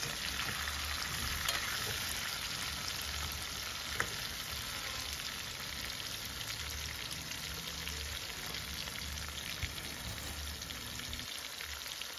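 Chicken pieces frying in oil in a steel wok: a steady sizzle, with one light click about four seconds in.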